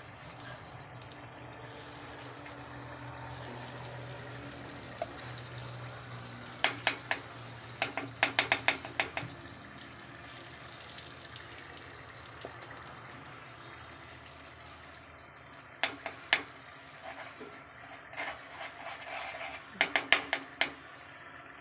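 Wheat flour being mixed by hand in a steel kadai, with clusters of sharp clicks and taps against the pan several times over a steady hiss.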